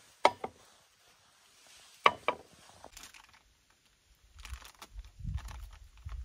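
A metal Turkish coffee pot (cezve) clinking against camping tableware: one ringing clink just after the start, then a quick double clink about two seconds in. In the last two seconds come uneven low rumbles with faint rustling.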